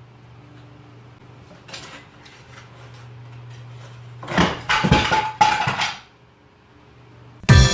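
Dishes or pans clattering: a run of loud crashing knocks with a metallic ring about four seconds in, over a steady low hum.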